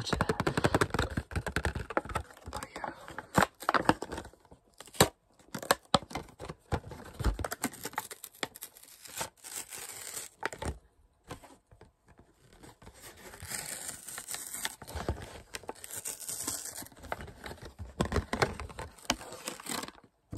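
Clear plastic blister packaging crinkled, bent and pulled away from its cardboard backing by hand, giving irregular sharp crackles and clicks, with a brief pause about halfway.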